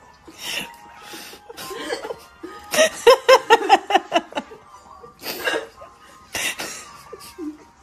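A person laughing: breathy bursts of laughter, with a quick run of "ha-ha-ha" about three seconds in.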